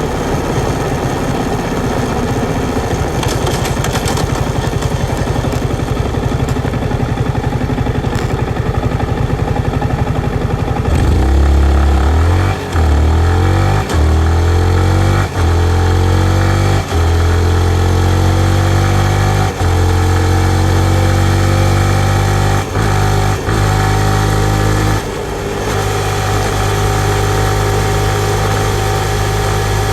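Yamaha MT-15's single-cylinder 155 cc engine running steadily at low revs, then accelerating hard from about a third of the way in. The revs climb and drop back again and again through a series of quick gear changes, before settling into a steady cruise near the end.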